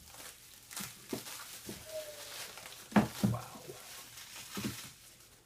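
Packaging wrapped around a lightsaber hilt crinkling and rustling in the hands as it is unwrapped, with a few short handling noises.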